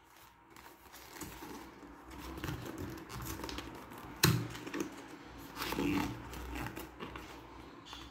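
Thin cardboard box being handled and opened by hand: rustling and scraping of the card, with a sharp snap about four seconds in as the top tuck flap is worked open.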